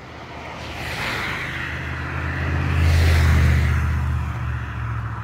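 A car passing by on the road, its tyre noise and engine growing louder to a peak about three seconds in, then fading away.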